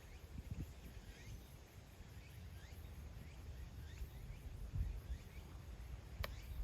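Faint bird chirps, short and repeated every half second or so, over a low wind rumble on the microphone. A single sharp click about six seconds in.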